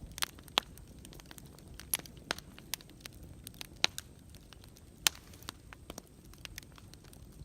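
Campfire crackling: burning wood gives irregular sharp snaps and pops, several louder ones among many small ticks, over a low steady rumble of the flames.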